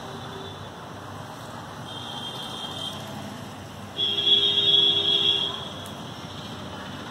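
A high, buzzer-like electronic tone sounds briefly about two seconds in, then again louder for about a second and a half, over a steady background hiss.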